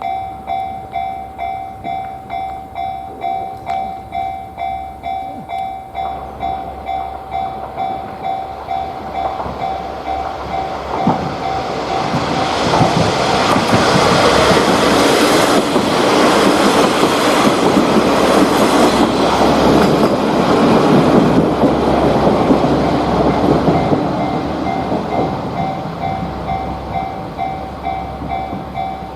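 Japanese level-crossing warning alarm sounding its regular "kan-kan" beat, a little over once a second. A KiHa 40-series diesel railcar passes over the crossing from about ten seconds in, with wheel and engine noise swelling loud and then fading near the end, while the alarm keeps ringing.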